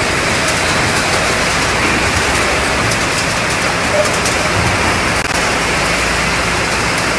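Factory packing line running, with roller conveyors and a robotic palletizing arm. The machinery makes a loud, steady, dense hiss with faint clicks scattered through it.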